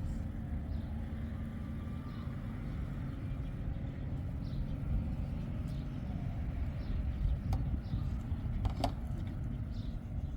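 A steady low engine rumble, with faint short chirps above it and one sharp click near the end.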